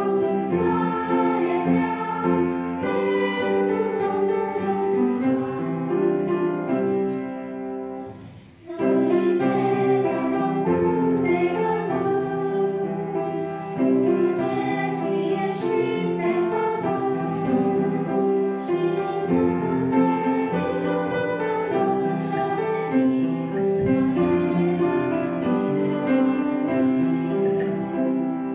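Children's choir singing a song with instrumental accompaniment, with a brief drop in the music about eight seconds in before it picks up again.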